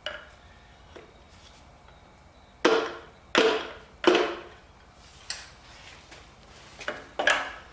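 Hammer taps on a 5.3 LS V8's internals during teardown, knocking a piston and connecting rod up out of its bore: three sharp ringing knocks in quick succession a little under three seconds in, a few lighter taps, then one more loud knock near the end.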